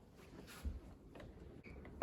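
Near-quiet room tone with a soft low thump about two-thirds of a second in and a couple of faint clicks after it.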